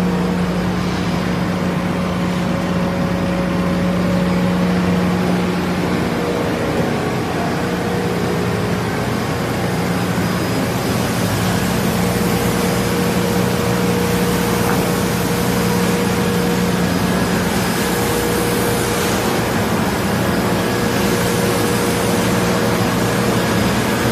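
Automatic door-panel sanding machine running: a steady motor hum with a constant low tone, under the hiss of its rotating abrasive brush heads sanding the panel surface.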